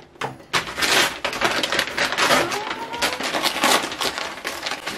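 Brown paper packaging rustling and crinkling in a rapid, irregular stream as it is handled and pulled open.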